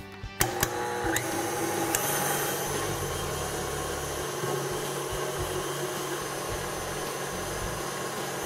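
KitchenAid tilt-head stand mixer with its wire whisk, stepped up to a higher speed about half a second in, then running steadily as it whips egg whites and sugar into meringue. There are a few sharp clicks in the first two seconds.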